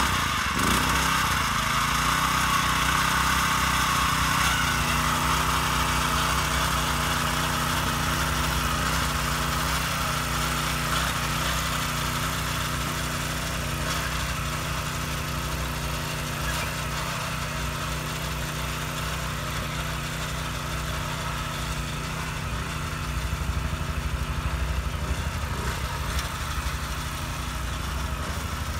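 Honda Komame F200 mini tiller's small 2-horsepower engine running steadily at working speed while its tines dig through weedy soil.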